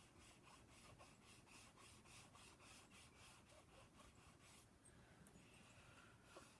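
Faint, quick back-and-forth strokes of a soft pastel stick scrubbing on drawing paper, about four or five strokes a second, thinning out about two-thirds of the way in.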